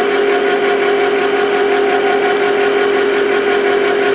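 Wall-mounted electric can opener running with a steady, unbroken hum, turning the tin as it cuts around the lid.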